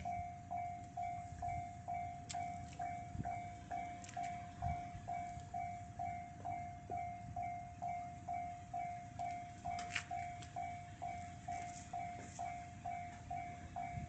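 Japanese railway level-crossing alarm: an electronic bell repeating one ding about twice a second, the warning that the crossing is closed for an approaching train.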